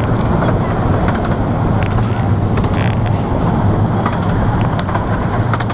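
Steady low rumble of a railway carriage running along the track, heard from inside, with a few light clicks and knocks.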